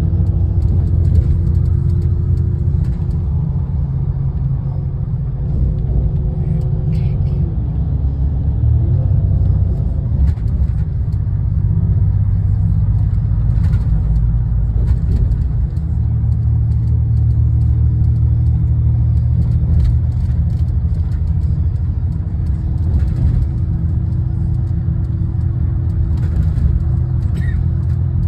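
Road vehicle cruising at speed, heard from inside the cabin: a steady low engine and road rumble with a droning hum that dips in pitch briefly twice and then settles back.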